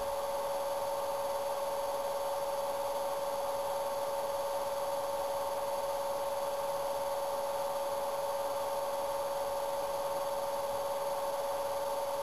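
A steady electrical hum with a pitched whine held at one level throughout, over faint hiss. No brush or paper sounds stand out.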